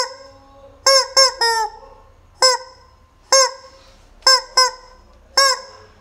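Rubber chicken squeaky toy being squeezed, giving about nine short honking squawks at an uneven pace, some in quick runs of two or three, each dipping in pitch as it ends.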